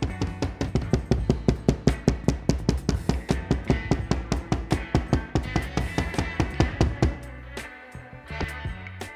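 Background music with a fast, steady drum beat and bass; the drums drop out about seven seconds in, leaving softer music.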